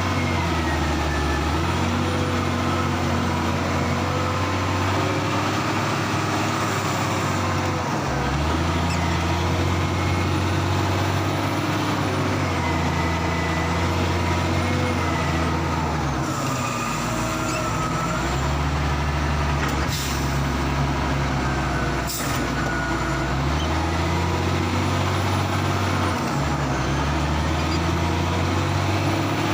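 A Caterpillar 966G wheel loader's heavy diesel engine working under load, its revs stepping up and down every few seconds through the lift-and-carry cycles of unloading logs, with a wavering whine above it. Two sharp knocks come about two-thirds of the way in.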